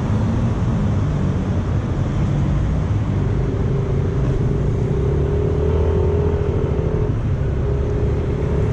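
Yamaha automatic scooter riding at low speed in city traffic: its engine runs steadily under road and traffic noise, and a steady higher hum joins about three seconds in.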